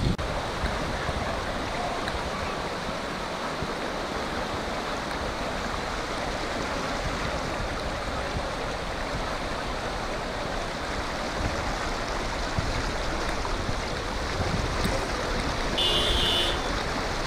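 Floodwater rushing down a flooded street, a steady rushing noise. A brief high-pitched sound comes near the end.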